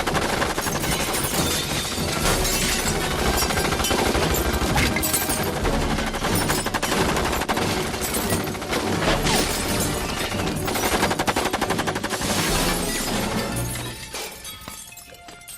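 Long, continuous machine-gun fire from a fembot's breast-mounted guns, a film sound effect, over background music. It dies away about fourteen seconds in.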